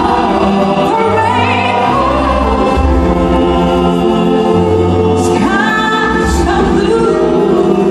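Live pop performance: a woman sings into a microphone, holding long notes, over a live band with keyboards and bass.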